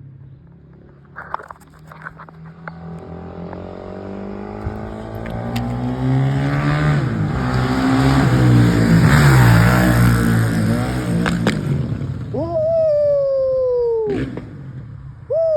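Honda CRF450 single-cylinder four-stroke dirt bike with an FMF exhaust pipe, its engine growing louder to a peak in the middle and then easing off. After that come two sharp throttle blips, the second near the end, each with the revs falling away over a couple of seconds.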